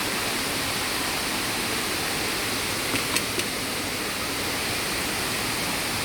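Steady rush of a waterfall's water falling and flowing, with a few faint light clicks about three seconds in.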